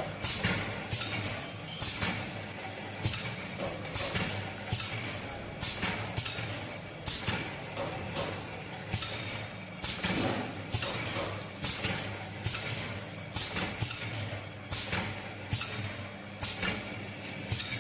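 Automatic oral-liquid bottle filling and capping machine running: a steady motor hum under repeated short clacks and hisses, about one or two a second.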